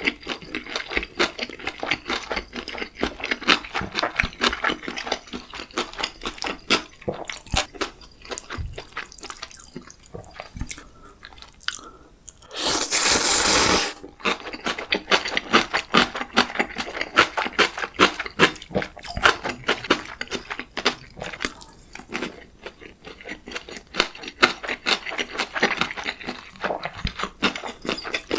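Close-miked eating sounds: fast, wet mouth clicks and squishes of chewing gimbap and ramyeon. A loud rush of noise lasting about a second breaks in a little before halfway.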